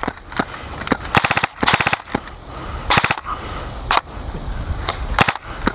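Airsoft guns firing, with short rapid bursts and single shots at irregular intervals.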